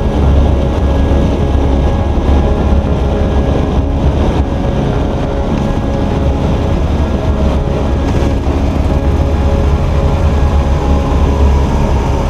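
A BMW K1300 motorcycle's inline-four engine running steadily at cruising speed, with heavy wind buffeting on the fairing-mounted microphone.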